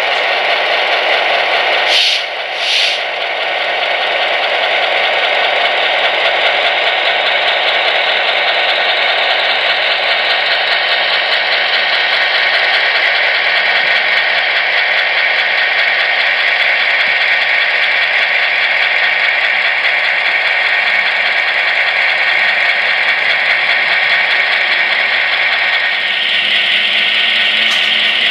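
HO-scale EMD F7A model locomotive's onboard sound decoder playing diesel engine running sounds through its small speaker, steady and tinny. Two brief hissing bursts come about two seconds in, and the sound changes near the end.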